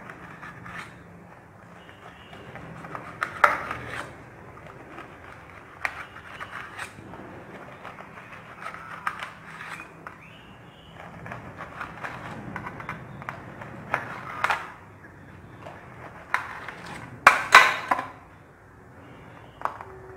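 Kitchen knife slicing through a steamed, rolled colocasia-leaf roll, the blade tapping and scraping on a stainless steel plate in irregular strokes, loudest near the end.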